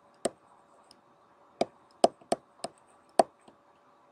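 Stylus tapping and clicking on a pen tablet while handwriting, about six sharp, irregular taps.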